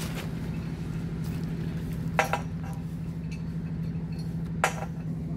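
Small petrol water pump (alkon) engine running steadily, driving water down the hose and drill pipe for manual well boring. Two sharp metal clinks, about two and a half seconds apart, sound over the engine.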